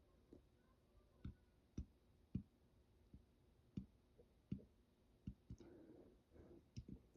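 Near silence broken by about ten faint, irregular clicks, with a soft breathy noise around six seconds in.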